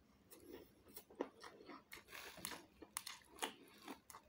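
A person chewing a mouthful of beef curry and rice close to the microphone, with faint, irregular wet mouth clicks and smacks throughout.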